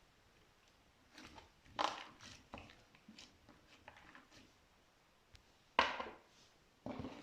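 Slime being worked by hand, giving a series of short, sticky squishes and pops at uneven intervals, the loudest about two seconds in and about six seconds in.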